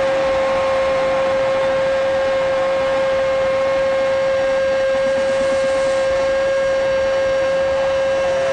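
A radio football narrator's long goal shout, one note held unbroken for over ten seconds, over stadium crowd noise.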